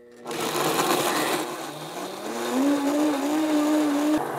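Countertop blender running, blending Froot Loops cereal and milk into a liquid. The motor's pitch rises about two seconds in as it speeds up, then holds steady, and the motor tone drops away near the end.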